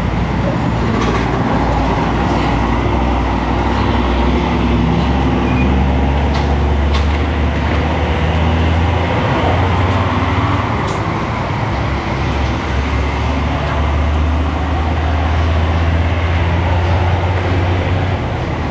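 Road traffic with a heavy diesel engine running close by: a steady low drone under the hiss of passing vehicles.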